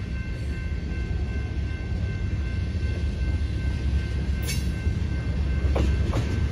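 Freight train of tank cars rolling slowly in reverse, a steady low rumble of wheels on rail with faint high steady whines, and a few sharp clicks in the second half.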